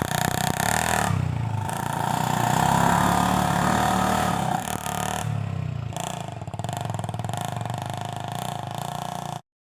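Small single-cylinder four-stroke Honda Revo 110cc motorcycle engine powering a homemade mini truck, running and revving with its pitch rising and falling. The sound cuts off suddenly near the end.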